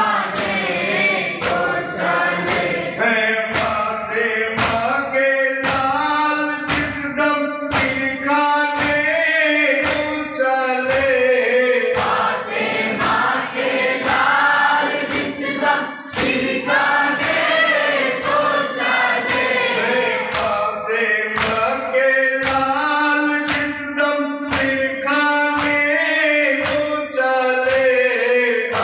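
A large group of men chanting a Muharram mourning lament in unison, with sharp matam hand strikes keeping time, about one and a half a second.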